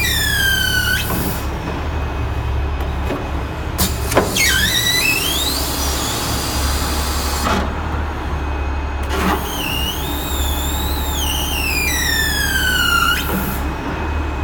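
Hydraulic machinery running with a steady low hum while its cylinders are worked. High-pitched squeals slide in pitch and stop abruptly: one falling in the first second, a short rising one about four seconds in, and a longer one that wavers and then falls near the end. A few sharp knocks come between the squeals.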